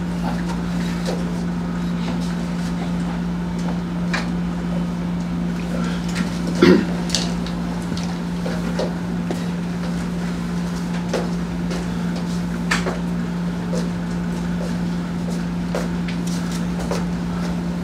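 A steady low hum under scattered light knocks and rustles of objects handled on a table, with one louder knock about six and a half seconds in.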